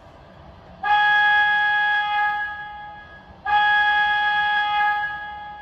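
A model subway train's onboard sound system sounding its horn in two long blasts, each a steady chord of several tones that fades out.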